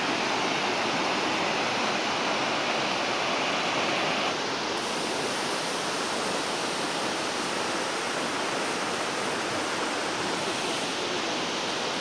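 Water rushing steadily over rocks in a shallow stream below a waterfall. About four seconds in the sound changes abruptly to a slightly softer rush of water.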